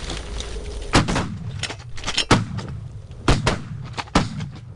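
Several shotguns firing at incoming geese: about five loud shots at uneven intervals, with fainter, more distant shots between them.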